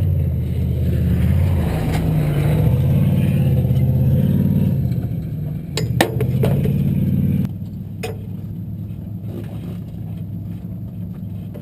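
An off-road race vehicle's engine running, its pitch rising and falling a little, then dropping away sharply about seven and a half seconds in, with a lower rumble left after. A couple of sharp clicks come near the middle.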